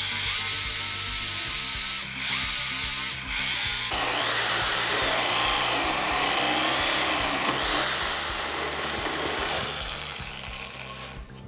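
Bosch GSB 16 RE corded impact drill boring a large hole into a wooden post with a wide wood bit. The motor runs with a steady whine, dipping briefly twice about two and three seconds in. After that its pitch rises and falls as the bit loads up, and it fades down near the end.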